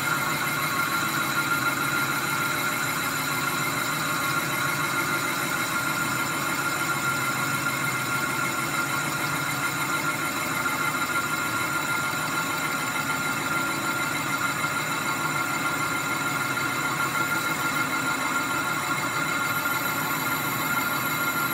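Metal lathe boring out the inside of a BMW N54 turbocharger's cast aluminium compressor housing: the spindle runs steadily while the boring bar's cut gives a steady high-pitched squeal.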